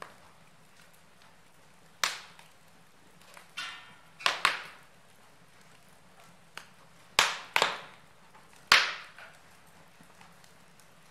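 A handful of sharp, irregularly spaced knocks or cracks, each dying away quickly. The loudest come about two seconds in, in a pair near four and a half seconds, and in a cluster between seven and nine seconds.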